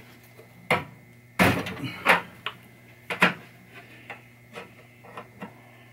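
Mallet striking a screwdriver held against a tab in a pinball backbox, bending the tab up so the back glass will seat: about four sharp knocks in the first three and a half seconds, then a few lighter taps.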